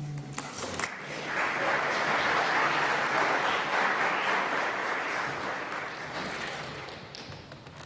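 Congregation applauding, starting about a second in and fading away near the end.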